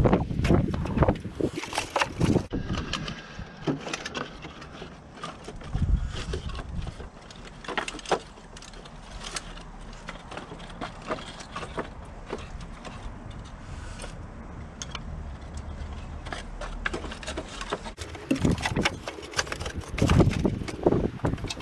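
Irregular knocks and clatter of wood being worked, over a steady low rumble.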